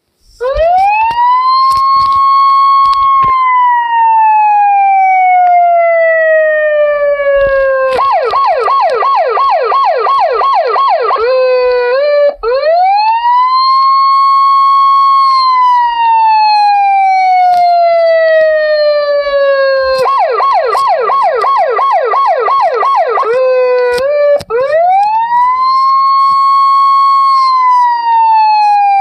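Police siren alternating between a slow wail and a fast yelp. The wail rises, holds its top note for a couple of seconds, then glides down over about five seconds. The yelp is about three quick up-and-down sweeps a second for about three seconds. The cycle repeats about every twelve seconds.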